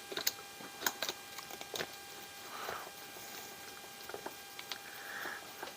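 Scattered small clicks and taps of tools and small plastic and metal parts being handled while the last upper suspension link is taken off an RC rock crawler.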